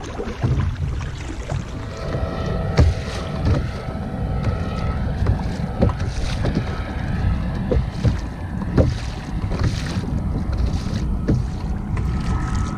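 Choppy water slapping and splashing against a moving kayak's hull, with wind buffeting the microphone and a few sharp knocks now and then.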